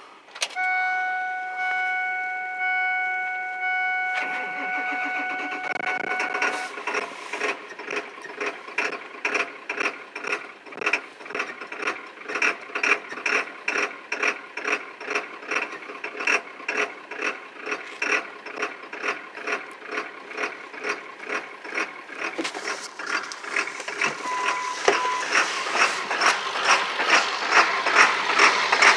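A dashboard warning chime sounds for the first few seconds. Then the 7.3 Power Stroke diesel's starter cranks the engine slowly, with even pulses about one and a half times a second. The cranking is slow because the oil is cold and stiff and the starter and batteries are weak. The pulses grow louder and faster near the end.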